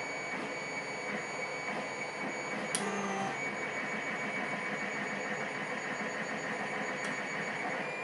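Hook pick scraping and ticking against the pins of a pin-tumbler cylinder lock held under tension, with one sharp click about three seconds in and a fainter one later, as the picker works under pin 4. A steady hiss with a faint high whine runs underneath.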